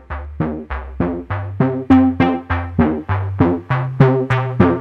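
Background music: an even run of short notes, close to four a second, over a bass line that changes note. The notes get louder about two seconds in.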